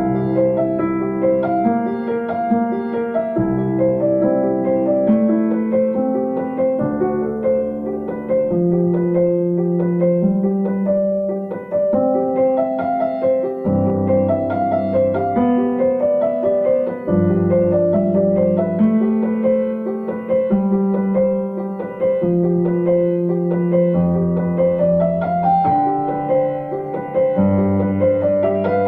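Piano music: a steady pattern of held chords over a changing bass line.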